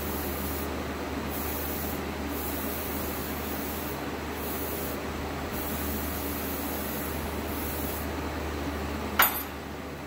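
Aerosol spray cleaner hissing through a straw nozzle in several bursts, washing grease off a truck's rear wheel hub; the spraying stops about eight seconds in. One sharp clack near the end.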